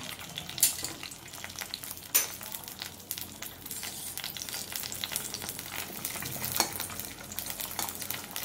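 Two eggs frying in hot oil in a steel karahi, sizzling and crackling steadily, with a few sharp pops of spitting oil.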